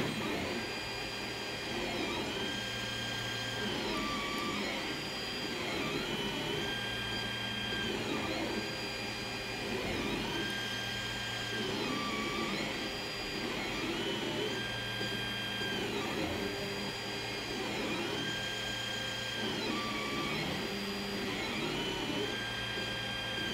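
Creality Ender-3 3D printer printing on its stock V1.1.3 mainboard: the stepper motors whine in tones that climb, hold and drop as the print head moves, a pattern repeating about every two seconds, over the steady noise of the cooling fans. The loud motor whine is typical of this board's non-silent stepper drivers.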